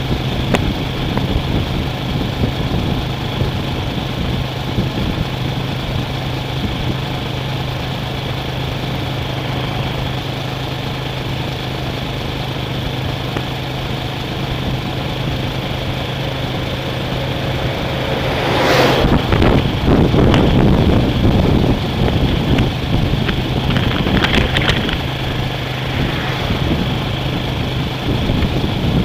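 A motor vehicle running with a steady low engine hum, which turns louder and rougher about two-thirds of the way in.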